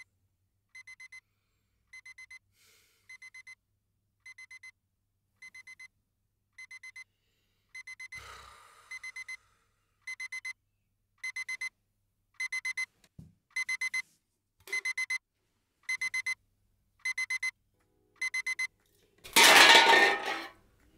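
Alarm clock beeping in quick groups of four, a group about every second, growing louder as it goes on. Near the end the beeping stops and a sudden loud rush of noise lasts about a second and a half.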